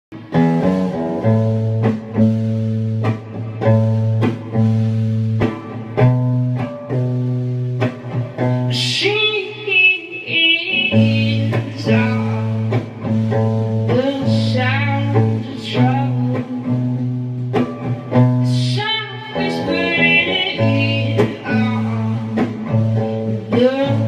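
Electric guitar playing a repeating strummed chord pattern, with a high melody line whose pitch bends coming in over it three times.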